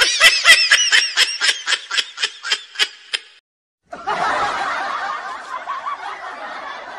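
A high-pitched snickering laugh in quick bursts, about six a second, that stops abruptly after about three seconds. After a brief silence, a denser stretch of several overlapping voices follows.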